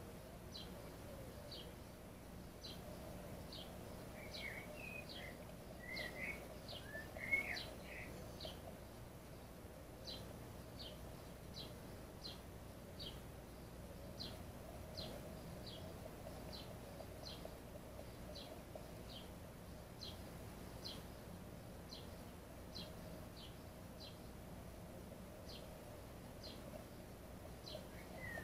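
Faint outdoor birdsong: one bird repeats a short, high, downward-sliding note about once a second, and a second bird twitters briefly from about four to eight seconds in, loudest near seven seconds.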